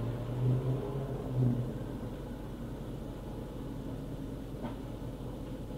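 Glasgow Coronation Mark 1 tramcar giving a low rumble on a worn old tape recording, with a stronger deep hum for the first second and a half, then a steady rumble.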